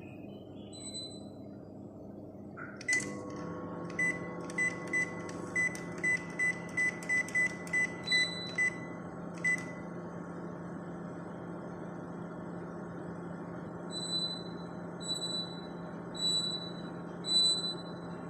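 Microwave oven being set: about a dozen short identical keypad beeps, then a click, and the oven running with a steady low hum. A high chirp repeats about once a second near the end.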